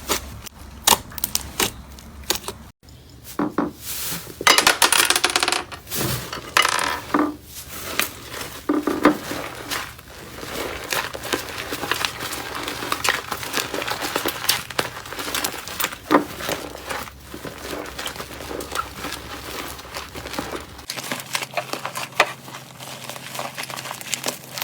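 Hands squeezing, poking and stretching slime: a dense run of small sticky pops, clicks and crackles.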